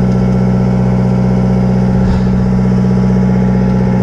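A sportfishing boat's engine running at a steady, even drone.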